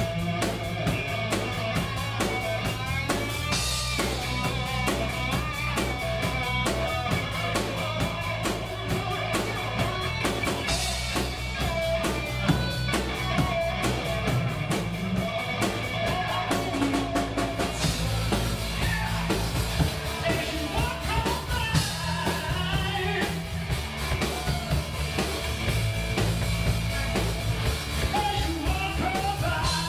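Rock song from a live band: vocals sung over electric guitars and a drum kit, playing continuously.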